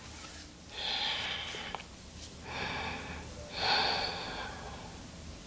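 A woman breathing audibly and slowly while holding a reclined yoga pose: three breaths, each under a second long.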